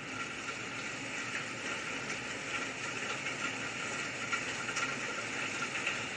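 Rain sound effect: a steady, even hiss of falling rain.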